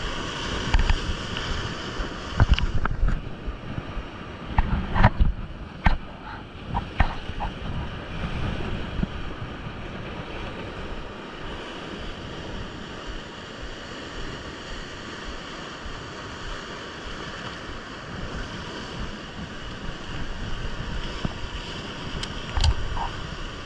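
Surf breaking and washing over rocks, with wind buffeting the microphone. A few sharp knocks and clicks come in the first several seconds and again near the end.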